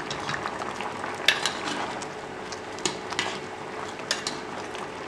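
Bitter gourd curry bubbling in a clay pot while a spoon stirs it, with a steady hiss from the simmering curry and a few sharp clicks of the spoon against the pot.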